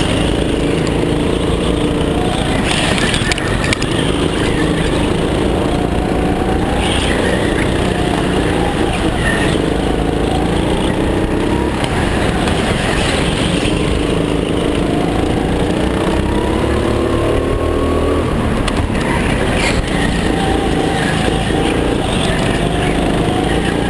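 Go-kart engine heard from on board the kart as it is driven hard round an indoor track, its pitch climbing and dropping again and again as the driver accelerates out of the corners and lifts into them.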